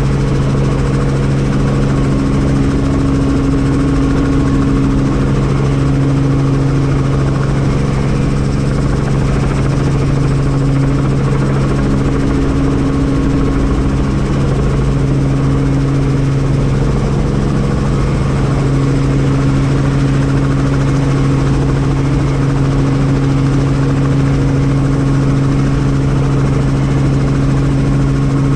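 Helicopter running steadily: a constant, unchanging engine and rotor drone with a strong low hum.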